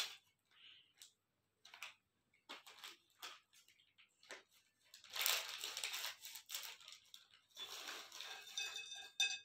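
Plastic snack packets rustling and crinkling as one is snipped open with scissors and the crunchy Kurkure snacks are poured out onto a ceramic plate. Scattered faint rustles and clicks give way to a longer stretch of crinkling and rattling in the second half.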